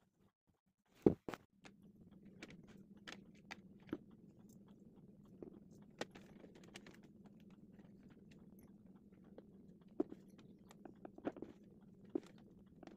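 Close handling noise from fingers working a pink cloth and a plastic ring onto a craft doll: scattered soft clicks, taps and rustles, with one sharp knock about a second in. A faint steady hum runs underneath from about a second and a half in.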